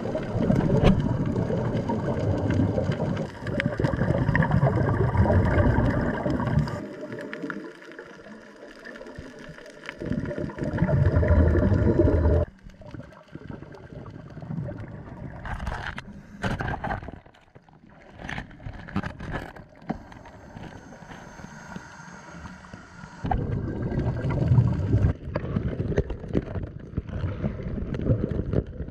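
Underwater scuba sound: divers' exhaled bubbles from their regulators, a loud bubbling rumble coming in long bursts of a few seconds, with quieter stretches between. A few sharp clicks come about halfway through.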